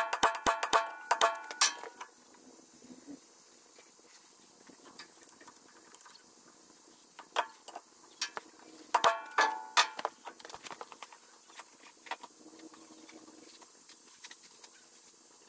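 Hammer blows on metal, driving a wheel bearing race (cup) into the hub with the old bearing used as a driver. Two quick flurries of ringing metallic strikes, one at the start and another about nine seconds in, with lighter taps between.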